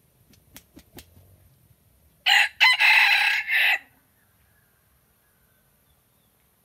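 Red junglefowl rooster flapping its wings in three quick claps, then crowing once: a short crow of about a second and a half with a brief break near its start.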